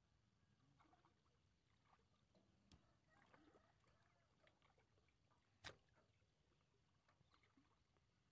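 Near silence: faint open-air ambience with a few soft ticks and knocks, and one short sharp click a little past the middle as the loudest sound.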